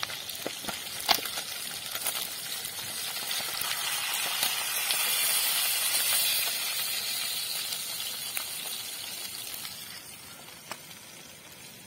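Fish frying in hot coconut oil in a metal pan, a steady sizzle that swells in the middle and fades near the end. A steel ladle clinks against the pan a few times about a second in.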